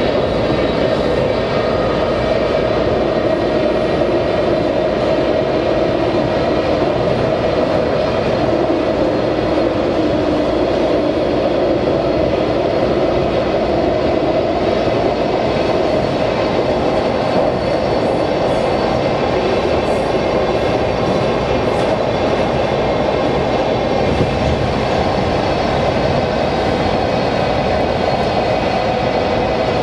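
Washington Metro Red Line train running steadily, heard from inside the front car: a continuous rumble of wheels on rail with a faint steady whine over it.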